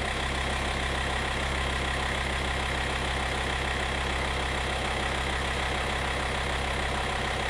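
Volkswagen T5's 2.5-litre five-cylinder TDI diesel engine idling steadily, warming up just after its water pump was replaced.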